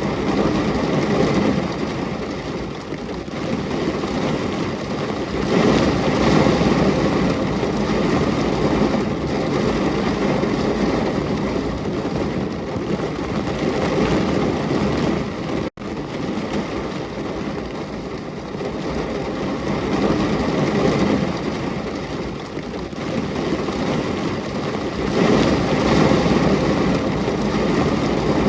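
Steady rain noise that swells louder for a few seconds at a time and cuts out for an instant about halfway through.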